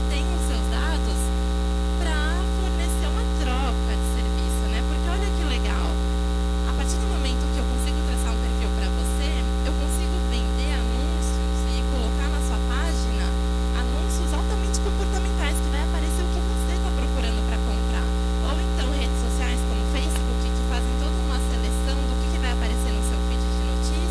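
Loud, steady electrical mains hum with a ladder of higher buzzing overtones, unchanging throughout. A voice talks faintly underneath.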